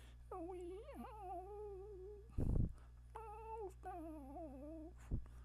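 A pet whimpering softly in a few drawn-out, wavering whines, with a short noisy rustle about halfway through.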